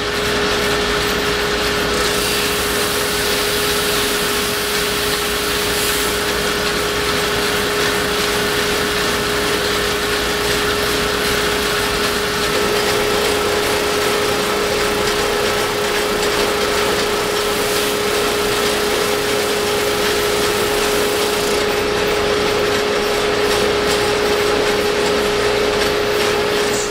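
Drum sander running with a spruce guitar top plate passing under its sanding drum: a steady hum under an even sanding hiss, which dies away at the very end.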